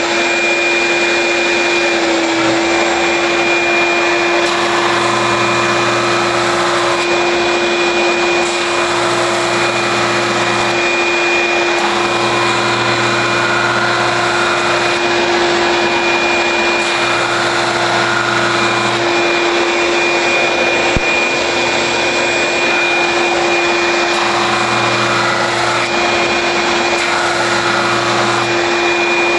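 A Performax drum sander runs along with a shop vacuum as dust collection, making a loud, steady machine noise with a constant whine. A deeper hum comes and goes in passes of about two seconds every three to four seconds as boards are fed through the sanding drum.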